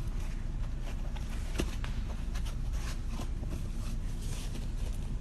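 Small clicks and rubbing of metal parts as a watchmaker's lathe slide is worked by hand, over a steady low hum.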